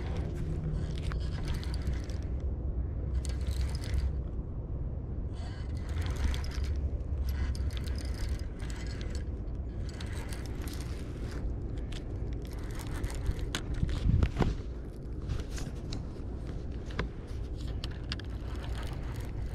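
Fishing reel being cranked in stop-start stretches while a fish is fought, over a steady low rumble, with one loud thump about two-thirds of the way through.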